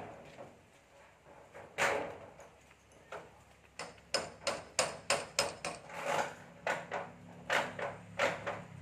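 Hammer blows on corrugated metal roofing sheets during a roof-sheet replacement: a single strike, then a run of quick strikes about three a second, then slower, spaced ones.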